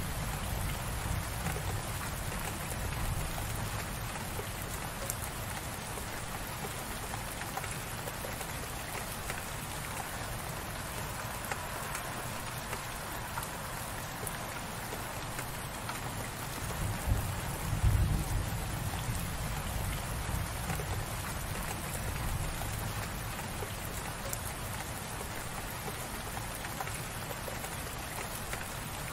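Steady light rain falling, with a brief low rumble swelling about seventeen seconds in.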